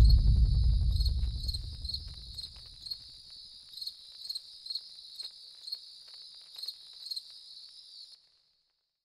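Crickets chirping in a steady, regular rhythm, under a deep boom that fades away over the first three seconds. All sound cuts off abruptly about eight seconds in.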